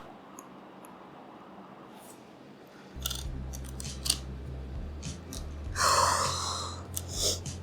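Small clicks and taps of clear plastic jigsaw puzzle pieces being handled and pressed together. There is a sharp breath out about six seconds in and another shorter one near the end.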